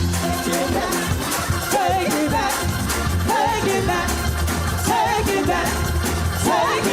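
Gospel band music with heavy bass and drums, and a voice singing wavering, wordless runs over it.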